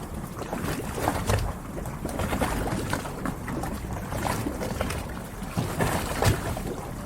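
Harbor ambience: a steady low rumble of wind and water around moored boats, with scattered irregular knocks and taps.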